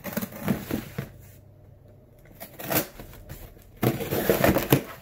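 Rustling and crackling of objects being handled, in two bursts: one just after the start and a denser one near the end.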